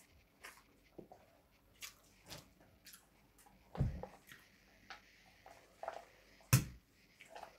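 Eating by hand: small wet chewing and finger smacks, with two dull knocks, about four and six and a half seconds in, as a pickle jar is handled on the table.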